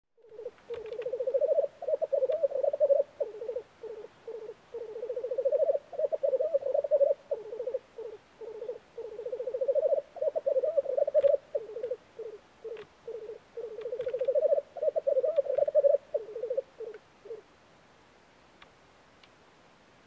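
Male black grouse giving their bubbling, cooing display song at a spring lek: long rolling phrases that swell and fade one after another, stopping shortly before the end.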